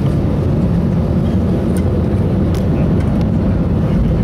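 Steady low rumble of an Airbus airliner's cabin as the jet taxis, with a few faint clicks.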